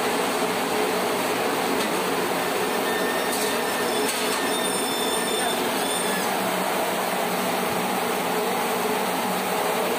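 Steady, loud rushing airflow noise, even throughout, with a few faint short high squeaks about halfway through.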